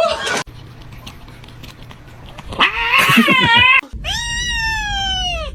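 Domestic cat meowing: a drawn-out yowl with a wavering pitch a little past halfway, then a long meow that falls in pitch near the end.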